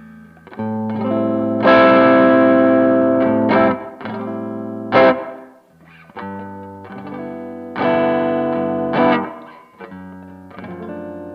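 Electric guitar played through a BOSS OD-2 Turbo Overdrive pedal: chords struck about seven times, each left to ring and fade before the next.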